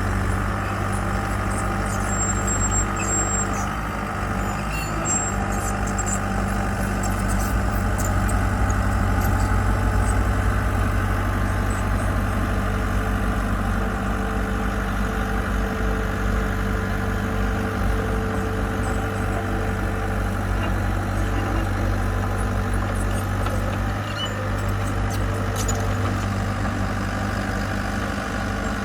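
Diesel engine of heavy construction machinery running steadily with a low, even hum, with a few faint clicks over it.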